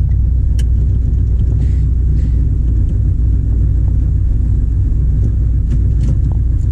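1979 Corvette L82's small-block V8 idling steadily while still warming up, a low rumble heard from inside the cabin.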